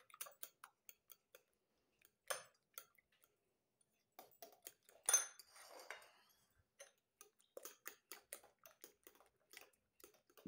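A utensil clicking faintly against a ceramic bowl as eggs are beaten by hand, a few light taps a second. About five seconds in there is one louder clatter of crockery.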